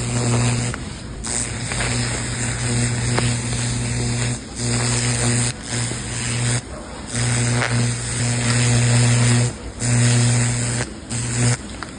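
TIG Brush weld cleaner electropolishing stainless steel: a steady buzzing hum with a hiss. It cuts out briefly about half a dozen times.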